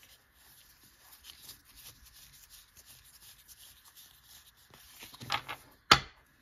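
Pokémon trading cards rubbing and sliding against each other as they are moved one by one through a fanned hand, soft papery scrapes, louder a little after five seconds. Just before the end the cards are squared into a stack with a single sharp knock on the wooden tabletop.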